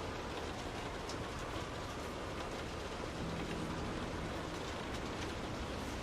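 Steady rain falling on a window pane, an even hiss with scattered individual drop ticks.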